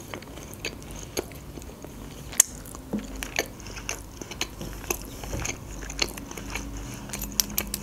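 Chewing a mouthful of lasagna: soft wet mouth clicks and smacks at an irregular pace.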